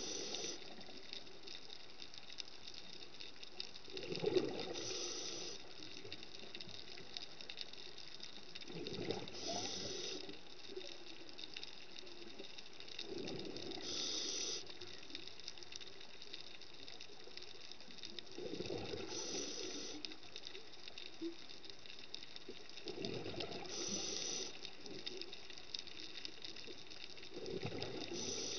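Scuba diver breathing through a regulator underwater: a burst of gurgling exhaled bubbles followed by a short hiss, repeating about every four and a half seconds.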